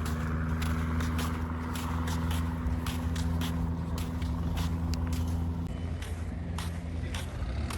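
An engine running steadily with a low, even hum, overlaid by frequent sharp clicks and ticks.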